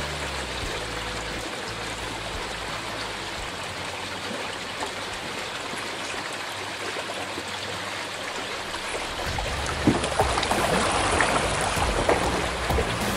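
Fast-flowing river water rushing steadily past a kayak. About nine seconds in it grows louder, with sharp splashes from paddle strokes and a low rumble.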